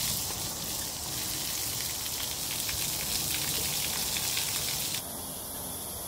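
Garden hose spraying water over a pony: a steady hissing patter of spray. It stops suddenly about five seconds in.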